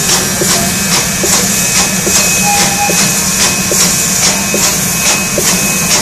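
Steam locomotive 65 018 hissing steam, with a rhythmic chuff of about two to three strokes a second over a steady low hum.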